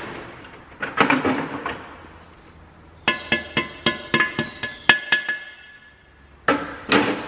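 Metal hand tools clicking on engine parts: a quick run of about a dozen sharp metallic clicks, each with a ringing tone, over about two seconds. Duller knocks come shortly before and near the end.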